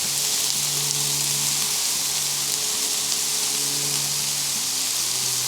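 Chicken thighs and waffle fries sizzling in oil on a Blackstone flat-top griddle, a steady, dense crackle.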